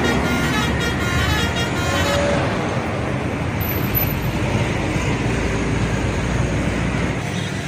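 Indonesian bus's telolet horn, several trumpets sounding together in stepped tones, ending about two seconds in. After it, steady engine and road noise with a deep rumble that eases off near the end.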